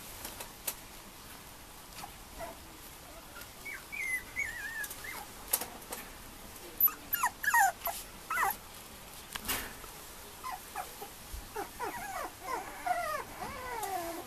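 Mame shiba puppy whimpering: thin, high whines that slide downward, in short spells about four seconds in, around seven to eight seconds, and a longer run near the end. A few sharp clicks are heard between them.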